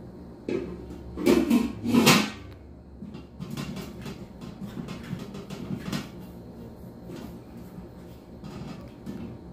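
A stainless steel cooking pot and its glass lid handled by a small child: a few louder knocks and clatters in the first couple of seconds, then lighter tapping and scraping of metal.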